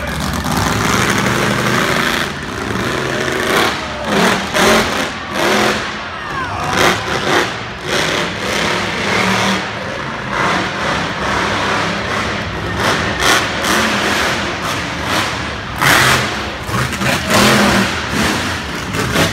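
Monster truck engines revving hard in repeated surges, rising and falling in pitch, loud throughout and echoing in an enclosed arena.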